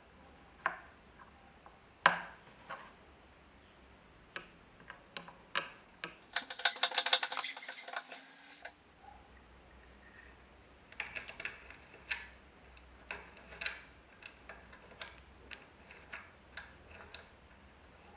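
Small metal parts of a trench lighter clicking and tapping as they are handled, with scattered sharp clicks throughout and a fast rattling run of clicks lasting about two seconds around the middle.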